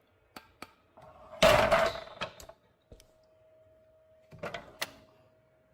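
Handling sounds at the miter saw: a few light clicks, then two short clattering knocks, the first about a second and a half in and the louder of the two, the second near the end. The saw's motor is not running.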